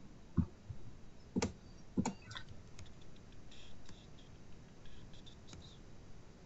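Computer mouse clicking: several sharp separate clicks in the first three seconds, then a run of lighter ticks.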